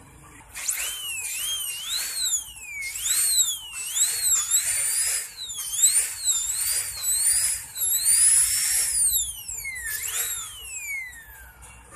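Dental drill (handpiece) whining at a high pitch. The pitch dips and rises again and again as it works on a tooth, then winds down with a falling pitch near the end.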